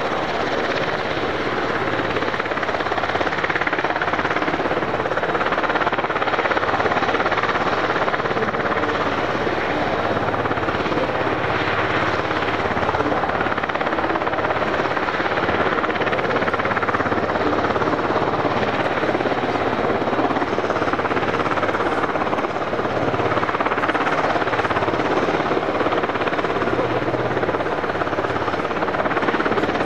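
UH-60J rescue helicopter running steadily: its turboshaft engines and rotor make a continuous loud rush with a low, pulsing rotor throb underneath.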